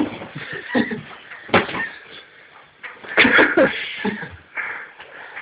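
Horseplay: a large foam pad being swung and hitting someone, giving several sharp thumps about a second and a half apart, mixed with shouts and yelps.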